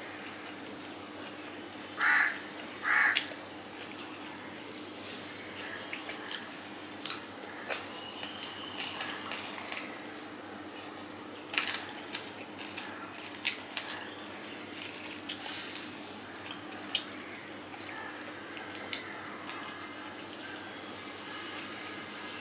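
Close-up wet chewing and mouth smacking of a person eating rice and fish by hand, with scattered short clicks and ticks. Two louder short mouth sounds come about two and three seconds in.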